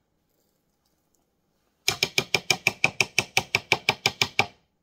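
A utensil tapping quickly against the plastic chopper bowl and jar while peanut butter is scooped and knocked in: an even run of about twenty sharp clicking taps, about seven a second, starting about two seconds in and lasting under three seconds.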